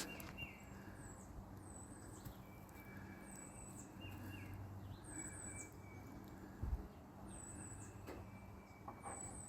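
A small bird calling over and over, faint: a short high chirp that dips at the end, about every one and a half seconds, over a steady low hum. A single dull low thump about two-thirds of the way through.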